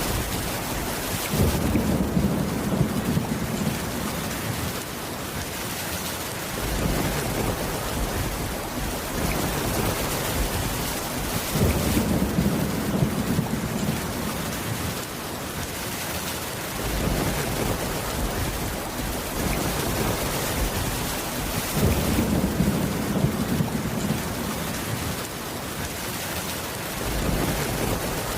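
Steady rain falling on a wooden cabin roof, with a low rumble of thunder about every ten seconds.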